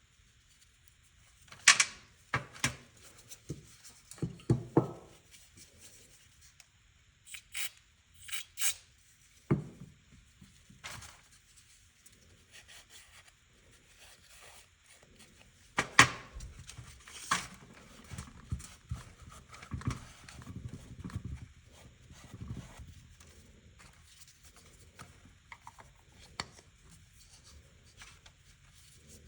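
Hand tools and small metal carburetor parts being handled during work on a Honda CRF230F carburetor: irregular clicks, taps and knocks with quieter rubbing and handling noise between. The sharpest clicks come about two seconds in and about halfway through.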